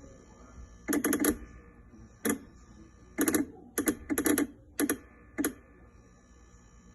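Oracle Touch espresso machine, switched off, giving short bursts of rapid clicking and rattling: about six bursts over four or five seconds, the first and the fourth the longest. These are the unexplained noises it makes while turned off.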